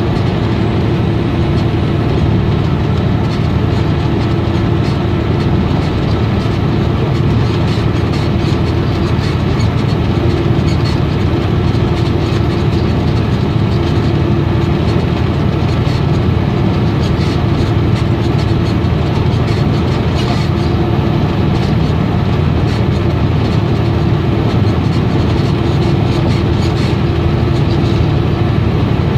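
Steady road and engine noise heard inside a car driving on a highway: a continuous low rumble of tyres and engine, with a faint hum that fades in and out.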